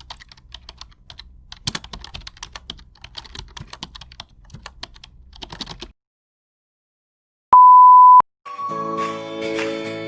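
Computer keyboard typing: a quick, irregular run of key clicks for about six seconds. After a short silence comes one loud, steady beep lasting under a second, and then music starts.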